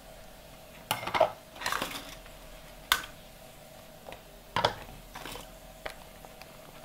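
Pots, pans and dishes clattering at a kitchen sink as they are handled and washed: a handful of separate clanks and knocks with short scrapes between them, the loudest about a second in, near three seconds and around four and a half seconds.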